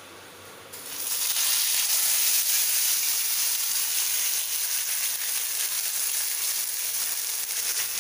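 A pomfret fish is laid into hot oil on a flat griddle (tawa). A loud sizzle starts suddenly about a second in and carries on steadily as the fish fries.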